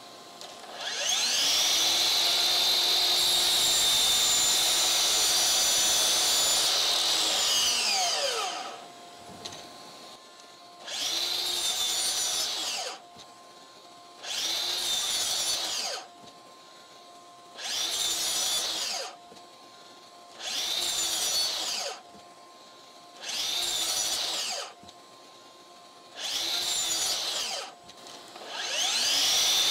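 DeWALT DCS781 60V FlexVolt brushless 12-inch sliding miter saw spinning up with a rising whine and cutting wood for about seven seconds. Then come six short runs of under two seconds each, with another starting at the end. Each run ends in a quick falling whine as the regenerative electric brake stops the blade.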